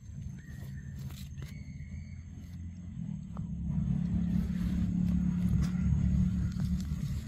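A low rumble that grows louder about three seconds in and stays strong, with a few short high chirps in the first two seconds and a faint steady high tone.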